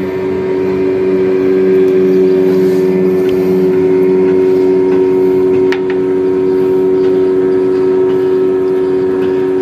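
A large engine running at a steady speed, a constant low drone with an unchanging pitch that swells slightly in the first couple of seconds and then holds level.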